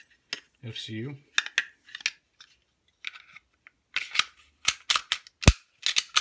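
Sig Sauer P365 slide being slid onto its frame (FCU): a run of sharp metal-on-polymer clicks and clacks as the parts are fitted, growing busier toward the end, with one strong snap near the end as the slide seats.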